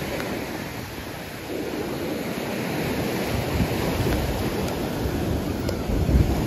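Surf: small waves breaking and washing up the sand, a steady rushing that swells a little louder about a second and a half in, with wind buffeting the microphone.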